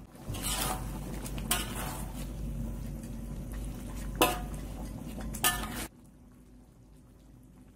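A metal spatula stirs and scrapes through chicken in bubbling gravy in a metal wok, with sharp clinks of metal on metal about half a second, one and a half, four and five and a half seconds in. The stirring stops suddenly about six seconds in.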